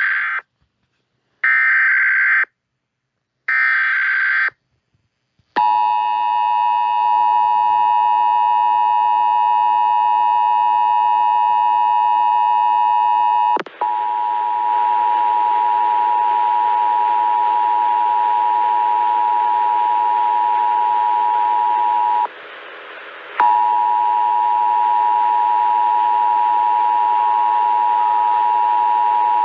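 Three short screeching bursts of EAS SAME header data, then the two-tone Emergency Alert System attention signal held steady. About fourteen seconds in, the tone goes on under a hiss, and it cuts out briefly about twenty-two seconds in.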